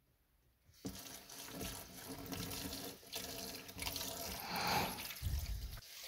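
Kitchen tap turned on suddenly about a second in, then tap water running from a hose on the faucet and splashing into a plastic tub in a stainless steel sink.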